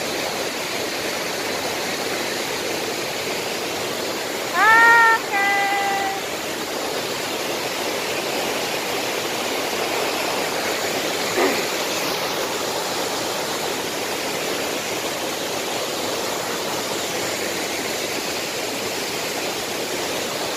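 Steady rush of a waterfall and its river cascading over rocks in white-water rapids. About four and a half seconds in, two short high calls rise above the water, and a small knock comes just past the middle.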